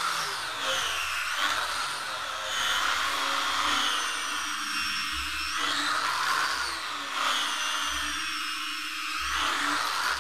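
Handheld angle grinder with a sanding disc running steadily while sanding a wooden window frame smooth. Its motor whine dips and climbs in pitch every couple of seconds as the disc is pressed into the wood and eased off.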